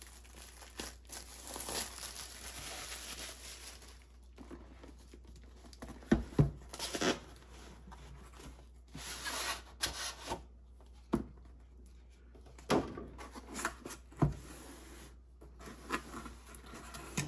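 Plastic shrink-wrap being torn and peeled off a cardboard box, crinkling, then the cardboard sleeve sliding off an inner box, with several sharp knocks of cardboard on the table.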